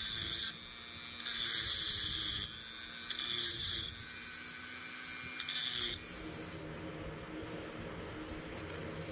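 Small handheld rotary tool spinning against the steel head of an adjustable wrench in three or four short bursts, stopping about six seconds in.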